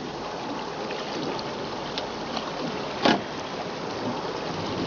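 Steady rushing noise of fast river current around a boat, with a small tick about two seconds in and a short, sharp knock just after three seconds.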